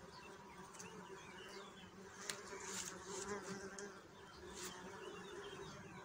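Bees buzzing around flowering plants: several bees overlapping in a steady, faint hum.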